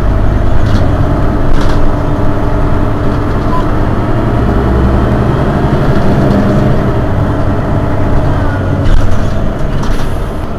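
Mercedes-Benz Citaro city bus's rear-mounted engine idling steadily while the bus stands at a stop, heard from close behind the engine compartment, with a brief hiss near the end.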